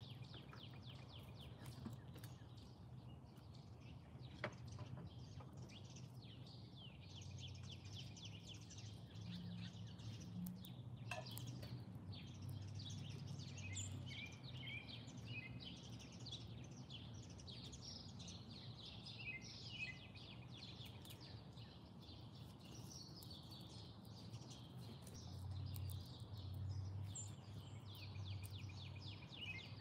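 Small birds chirping and trilling continually in the background, over a faint steady low hum, with a couple of soft clicks.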